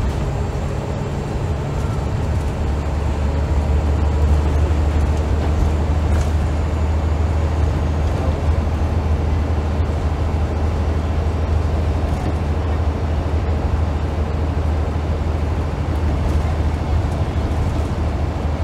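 Scania L94UB bus's rear-mounted diesel engine heard from inside the passenger saloon, running under load on the move with road and tyre noise. The low engine drone builds about three to four seconds in and then holds steady.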